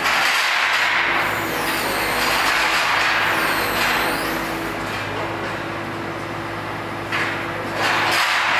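Truck-mounted hydraulic grapple crane at work lifting scrap steel frames. The truck's engine runs steadily under a rushing noise that swells and eases several times, with thin high squeals in the first few seconds.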